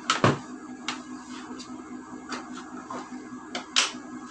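Paper gift bag being snipped open with scissors and handled: a few short, sharp snips and paper crackles, the loudest just after the start and again near the end.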